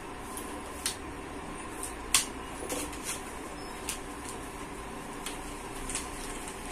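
Light clicks and knocks of a fishing landing net being handled and opened out, scattered irregularly, with the sharpest click about two seconds in. A steady low hum runs underneath.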